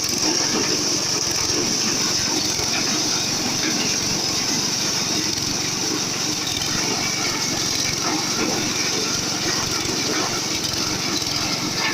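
Maize threshing machine running steadily under load, threshing cobs still in their husks: a constant engine drone with a dense crackle of cobs and husks breaking up inside.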